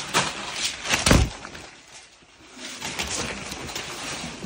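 Tape and plastic wrapping crinkling and tearing as a box wrapped in duct tape and shrink wrap is wrestled open, with one heavy thump about a second in.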